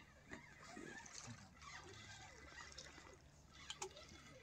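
Faint water splashing from a hooked carp thrashing at the surface as it is brought in to the bank, with two sharp ticks a little before the end.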